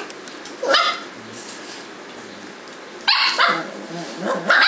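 Cavalier King Charles Spaniel puppies barking while play-fighting: one short yap just under a second in, then two louder barks in the last second and a half.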